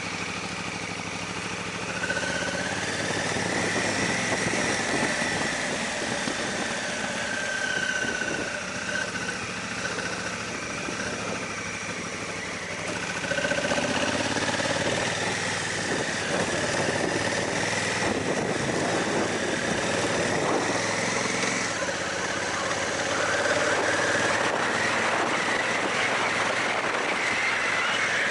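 Honda Africa Twin's parallel-twin engine running as the motorcycle rides along a gravel dirt track, its note rising and falling with the throttle over a steady rush of noise. It gets louder about two seconds in and again about halfway through.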